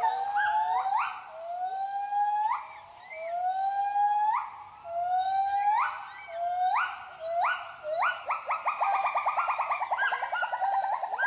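White-handed gibbon's territorial great call: a series of long hooting whoops, each rising in pitch. Near the end they speed up into a rapid climax of short notes.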